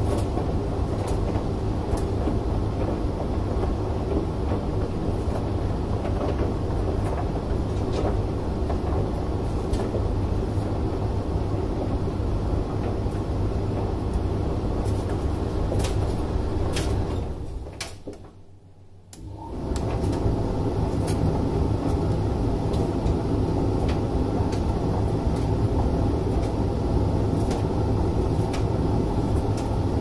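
Hoover dryer running on its drying cycle: a steady drum-motor and fan noise with occasional light clicks. Its rumble dies away about 17 seconds in, pauses for a second or two, then picks up again as the drum restarts, typical of a reverse tumble.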